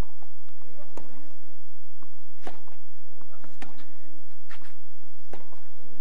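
Tennis rally: racquets striking the ball about five times, roughly one shot every second or so, with short grunts from the players on a few of the shots.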